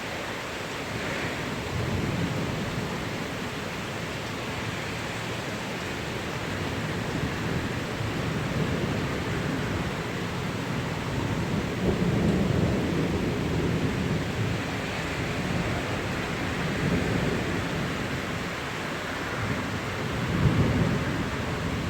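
Steady rain with thunder rumbling several times, the loudest rolls coming about twelve seconds in and again near the end.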